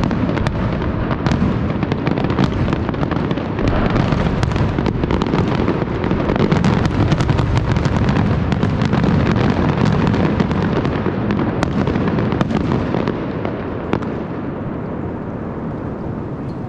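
Fireworks going off: many bangs and crackles in quick succession over a steady low noise, dying down over the last few seconds.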